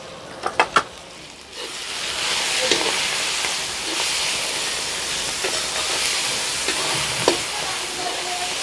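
Chopped onion, tomato, capsicum and green chilli sizzling as they fry in oil in a kadhai, with a spoon stirring and knocking against the pan. A few light clicks come first, then the sizzling swells up about a second and a half in and holds steady.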